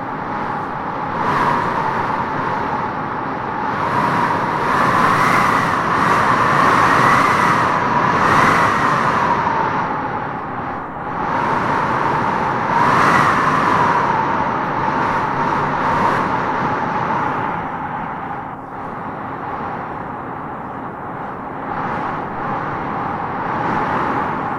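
Strong wind howling in gusts through trees: a steady rush with a whistling howl that swells and rises in pitch a few seconds in and again about halfway, then eases off.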